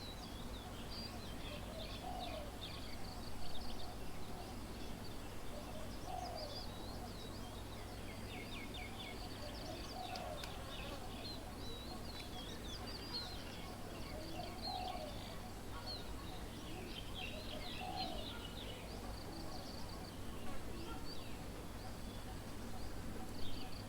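Outdoor chorus of birds: many small birds chirping and trilling, with a lower call repeated about every four seconds, over a steady low background hum.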